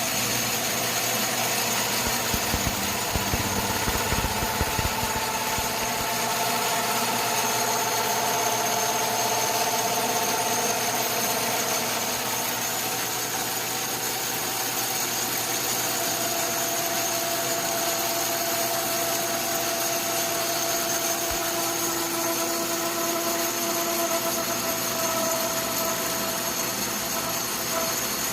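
Atlas metal lathe running under a facing cut on aluminum: a steady machine hum with held whining tones from the cut that slowly shift in pitch. A few low knocks come a few seconds in.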